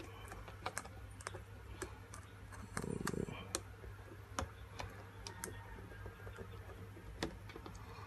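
Faint, scattered small clicks and taps of fingers working a laptop display cable connector into its socket and handling the laptop's plastic parts, with a brief rustle about three seconds in, over a low steady hum.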